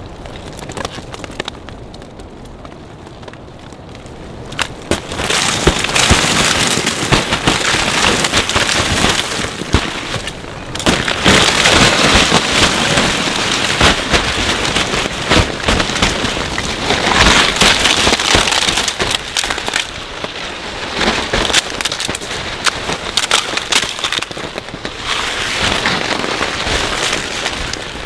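A crust of freezing-rain ice cracking and sliding off a tarp as the tarp is pushed up from underneath, a dense clatter of breaking ice in four surges of a few seconds each, quieter for the first few seconds.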